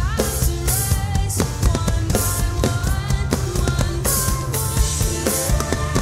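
Rock song playing with a drum part struck on an electronic drum kit, kick and snare hits on a steady beat under a melodic line.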